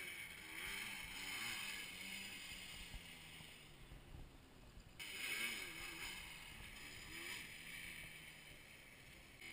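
Quad bike (ATV) engine revving some way off, its pitch rising and falling as the rider works the throttle, under a steady hiss. The sound changes abruptly about five seconds in, then the revving rises and falls again.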